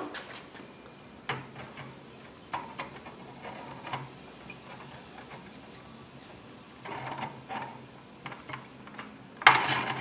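Scattered clicks and knocks of steel slip-joint pliers and metal fittings being handled on a small model steam boiler, with the loudest clatter near the end.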